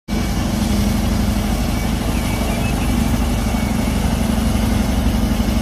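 Large crawler bulldozer's diesel engine running steadily, a constant low drone with a fine rapid pulse.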